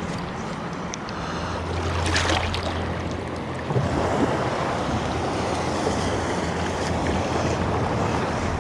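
Rough ocean surf breaking and washing around the shallows, a continuous rushing wash. It swells about two seconds in, and a bigger wave crashes in just before four seconds and keeps washing.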